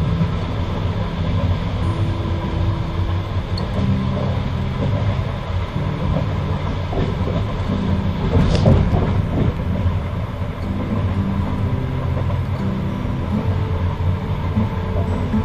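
Passenger train carriage running along the track: a steady low rumble with shifting humming tones from the wheels and running gear, and a brief louder rattle about eight and a half seconds in.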